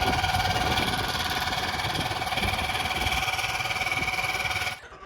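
Motorboat engine running steadily, a constant whine over a pulsing low rumble, which cuts off abruptly near the end.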